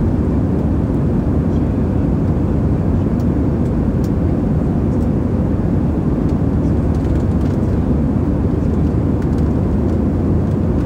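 Airbus A320ceo cabin noise in flight: a steady, even, low-pitched rush of engine and airflow noise heard from a window seat over the wing.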